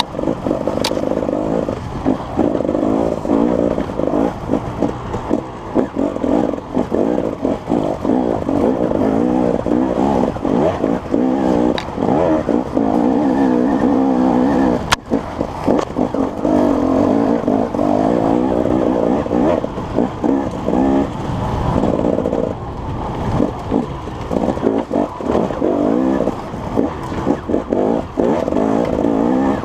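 An engine running continuously, its pitch wavering up and down, with frequent brief dips in level.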